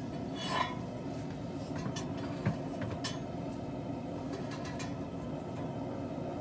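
Steady hum of a running forge heating the steel, with a few light metallic clinks and taps scattered through it.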